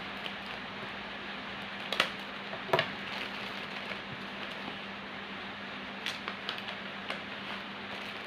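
Small handling clicks, two sharper ones about two and three seconds in and a few lighter ones later, from packing bird leg rings, over a steady hiss with a low hum.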